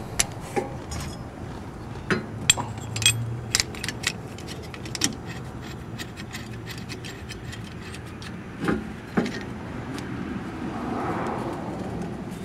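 Small metal clicks and clinks as a threaded brake caliper piston rewind tool and its adapter are fitted against a rear caliper piston by hand. Near the end comes a soft rubbing as the tool is turned to screw the piston back in, the piston now spinning free of its lubricated dust boot.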